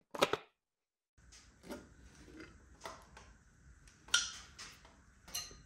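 Hand tools and metal engine parts clinking and knocking during a Subaru STI engine teardown: one sharp clack at the very start, then after a short break a run of lighter metallic clinks and knocks about a second apart.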